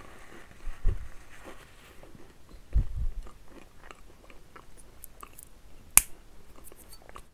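Close-miked chewing of chocolate snacks with the mouth closed: small crackles and two soft low thuds. One sharp click about six seconds in.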